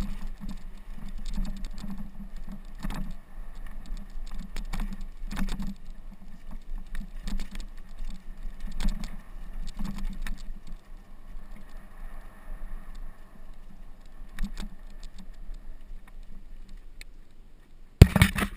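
Mountain bike clattering and rattling over a rough dirt trail on a downhill run, with irregular knocks over a steady low rumble. Near the end, a burst of loud knocks as fingers handle the GoPro camera.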